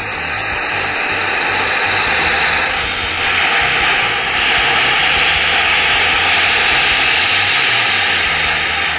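Plasma cutter cutting through the steel tank of an old water heater: a loud, steady rushing hiss that swells in at the start and turns brighter about three seconds in.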